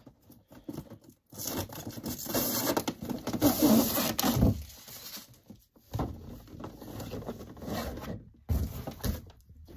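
Cardboard and plastic packaging being handled and pulled off a boxed Funko Pop figure: uneven rustling and scraping in two main stretches, with short silent gaps between.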